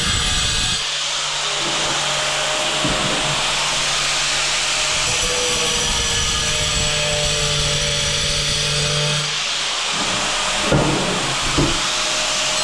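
Angle grinder running steadily as it cuts into a hard tile, a continuous grinding hiss with a steady low hum through most of it. Two short knocks near the end.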